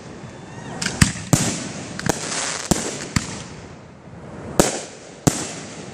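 Fireworks display: aerial shells bursting overhead in a string of about eight sharp, irregularly spaced bangs.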